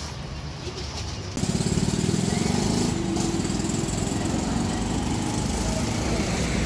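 A small engine running steadily with a fast, even throb. It comes in abruptly about a second and a half in, over a quieter, wind-like background.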